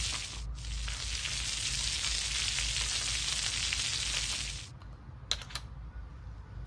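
A steady frying sizzle that cuts off a little past halfway, followed by a few light clicks.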